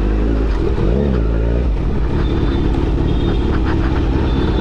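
Kawasaki Z900's inline-four engine running under way, over a steady low rumble; its pitch rises and falls briefly about a second in.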